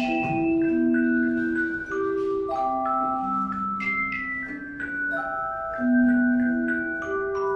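Tone chime ensemble playing a slow melody: tuned chime notes struck one after another and left to ring, with low held notes under a higher melody line.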